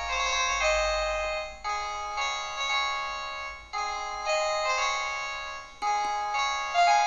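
Modottel WTE-300 mobile phone playing a 16-voice polyphonic MIDI ringtone melody in a piano-like synthesized voice. The sound is thin, with no bass. The tune comes in phrases of about two seconds, each beginning with a sharp attack and dying away.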